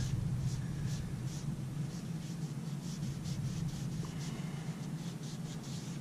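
Cloth rubbing along a steel knife blade in quick, irregular strokes, a dry scratchy swishing, over a low steady hum.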